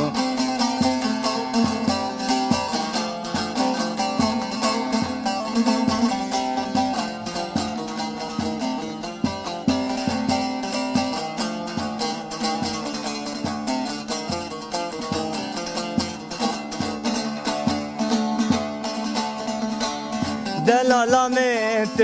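Instrumental break of a Kurdish folk song: a plucked string melody over a steady beat, with a voice coming back in with wavering notes near the end.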